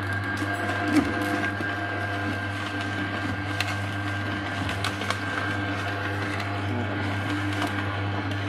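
Vertical slow (masticating) juicer running with a steady motor hum while produce is pushed down its feed chute, the auger crushing it with occasional sharp cracks, the loudest about a second in.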